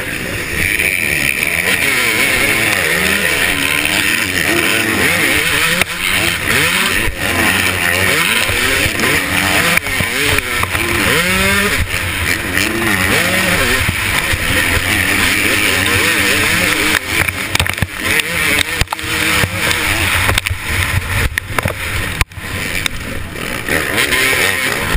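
KTM 250SX two-stroke motocross engine, revving hard and falling back again and again as the rider works through corners and rises. Heard close up from the rider's own bike, with a constant rush of noise over it.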